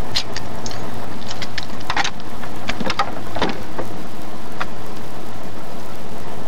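A hand-thrown railway track switch stand, its lever and points clanking in a few scattered sharp knocks over the steady hiss of an old film soundtrack.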